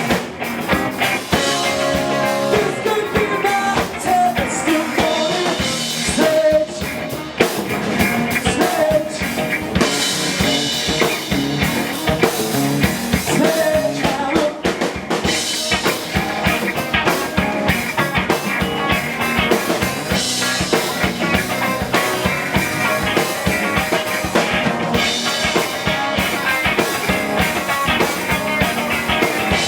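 A live rock band playing: drum kit keeping a steady beat under guitar and singing.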